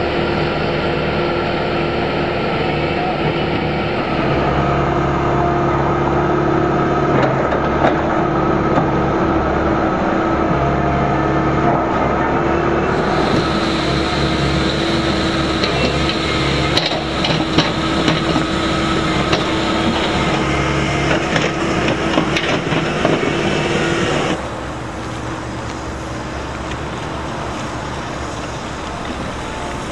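Hydraulic excavator's diesel engine running steadily with a constant hum, with a few sharp knocks about seventeen seconds in; the sound steps down in level about three-quarters of the way through.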